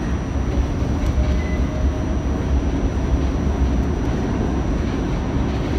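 Steady low rumble inside an R68A New York City subway car as it pulls out of a station and picks up speed.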